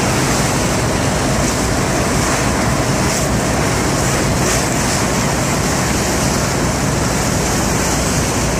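Steady rumble with a rushing hiss of churned water: tugboat engines and propeller wash working against the container ship's hull.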